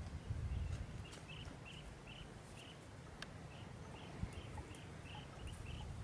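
Short high chirps from an unseen animal repeating about three times a second, over a low wind rumble on the microphone; a single sharp click about three seconds in.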